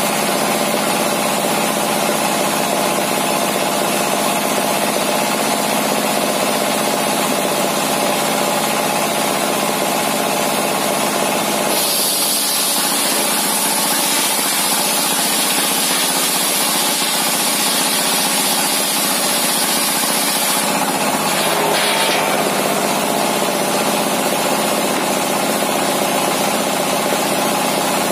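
Single-cylinder dompeng diesel engine running steadily and loudly, driving a homemade bench circular saw that rips a large timber beam. About twelve seconds in, a high hissing whine rises over the engine for roughly nine seconds as the blade cuts through the wood.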